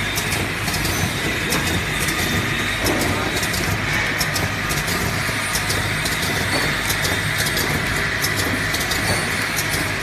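Automatic eye-drop bottle filling, plugging, capping and labeling line running steadily, its slat-chain conveyors and machinery making a continuous clattering noise with frequent light clicks.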